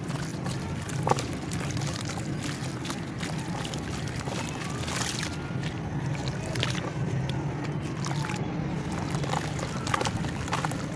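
Hands crumbling lumps of dry red dirt into water and squishing the wet clay paste: wet sloshing and squelching mixed with small crackles of breaking clumps and trickling grains, over a steady low hum.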